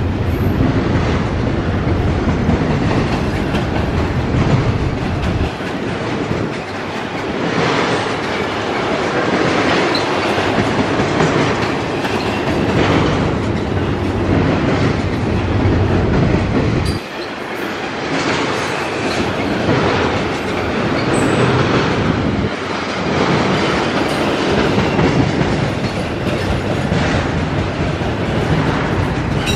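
Double-stack intermodal freight train rolling past on its container well cars: a steady rumble of steel wheels on rail, with repeated clickety-clack as the wheel sets cross rail joints.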